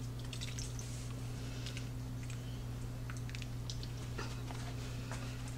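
A milk-and-cornstarch mixture poured into a crockpot of soup and stirred in with a wooden spoon: faint liquid sounds and light scattered clicks, over a steady low hum.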